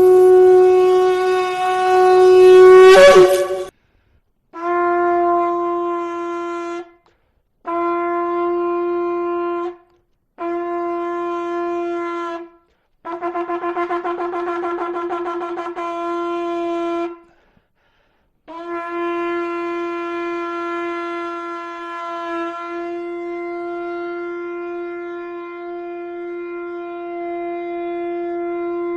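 Shofar being blown in a run of calls. A long blast breaks upward in pitch and stops about three and a half seconds in; then come three blasts of about two seconds each, then a longer blast that pulses rapidly. A long steady blast follows about halfway through.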